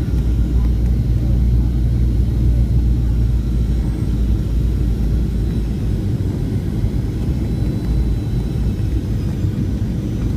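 Cabin noise aboard a Boeing 737-700 airliner: a loud, steady, deep rumble of the engines and airflow. The lowest part of the rumble eases off about six seconds in.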